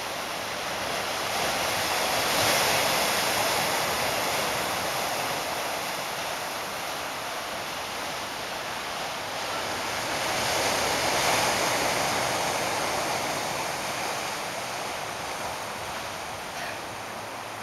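Pacific surf breaking and washing over a rocky shore, a steady rush of noise. It swells up twice, a few seconds in and again about two-thirds of the way through, and each time fades slowly.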